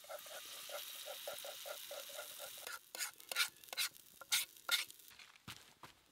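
Camp cooking: a utensil stirring or whisking in a pot or pan with a quick regular clatter, about four strokes a second, over a steady hiss. About halfway through, the stirring stops and a few sharp scrapes and knocks follow.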